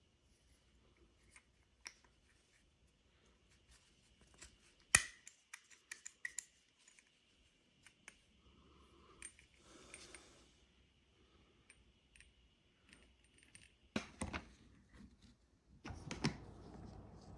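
Small clicks, taps and clinks of Glock 47 pistol parts being handled during a build, with one sharp click about five seconds in and a cluster of louder knocks and rustling near the end.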